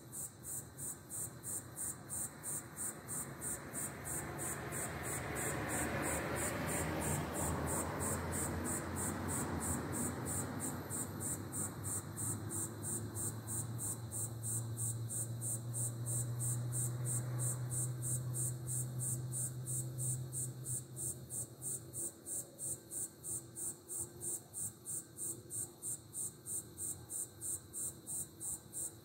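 Cricket-like insects chirping steadily in a high-pitched, even rhythm of about two pulses a second. A broad rushing noise swells and fades through the middle, with a low hum under it that stops suddenly about 22 seconds in.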